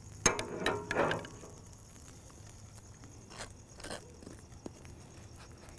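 A utensil spreading mayonnaise across a toasted bun: a sharp click, then a few quick scrapes in the first second, followed by a few faint taps.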